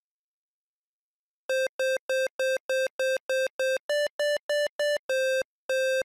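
8-bit square-wave synth beeps playing a short chiptune phrase: about a dozen quick notes, about three a second, nearly all on one pitch with four slightly higher ones, ending on two longer notes.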